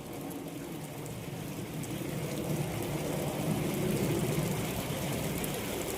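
Steady light rain falling, with a low rumble that swells toward the middle and then eases off.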